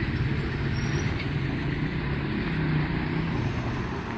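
Motor vehicle engine running on the street, a steady low hum over background traffic noise.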